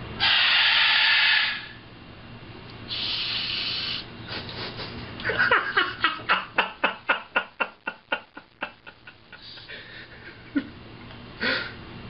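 Macaw shushing with a loud hissing 'shhh', twice, the first the louder, followed by a run of quick laugh-like 'ha-ha' pulses, about four a second, that fade out over several seconds.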